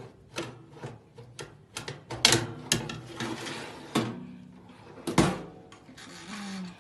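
Electric oven door opened and a metal baking tray put inside: a series of clicks, clatters and knocks, the loudest about two, four and five seconds in.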